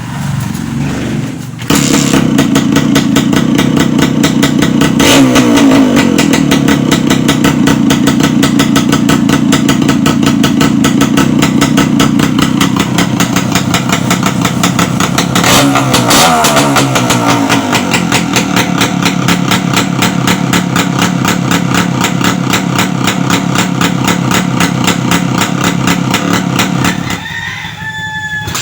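Scrambler motorcycle engine running through a newly fitted bullet-style exhaust pipe, idling with a steady, even beat. It is blipped twice, about five and fifteen seconds in, each rev falling quickly back to idle.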